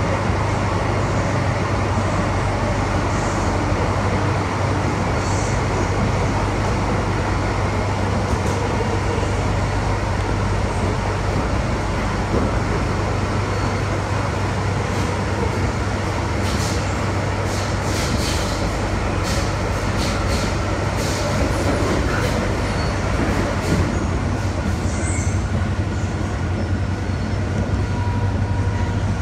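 Inside a moving MTR M-Train (Metro-Cammell electric multiple unit) carriage: a steady low hum and rumble of the running train, with faint steady whines. A few short clicks come about two-thirds of the way through.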